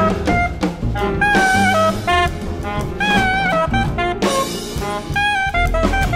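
Big band playing contemporary jazz: a saxophone and brass melody in short phrases with pitch bends, over bass and drum kit.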